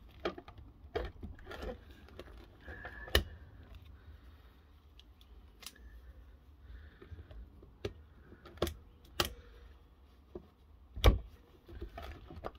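Mole grips (locking pliers) clamped on, adjusted and clamped back onto a stuck nut on a compressor motor: scattered sharp metal clicks and clinks, the loudest about eleven seconds in.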